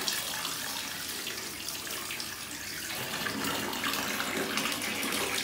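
Bathtub tap running steadily into the tub, with small splashes as a toddler plays in the water.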